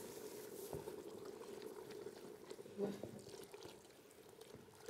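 Water poured from a plastic bottle into a steaming stainless steel pot of soup, a little water added to the soup base. A single short knock about three seconds in.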